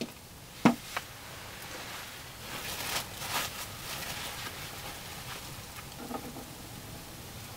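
A short knock and a click, then a plastic bag of mashed potato crinkling for about a second as it is lifted and squeezed in gloved hands.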